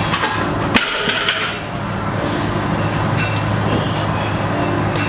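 A heavily loaded barbell with iron plates is lowered from a deadlift and set down on the rubber gym floor about a second in, with a single clanking impact and a brief metallic rattle of the plates. A steady low hum runs underneath.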